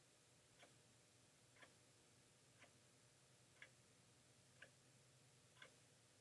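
Near silence with a faint tick once a second, evenly spaced like a ticking clock.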